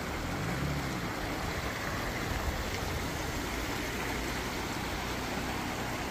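Shallow mountain stream flowing over rocks, a steady even rush of water.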